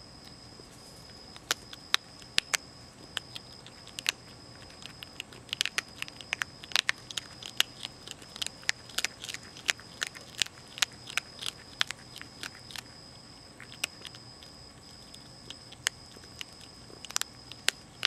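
Young Virginia opossum crunching dry cat food kibble: a run of irregular sharp crunches, coming thickest through the middle stretch.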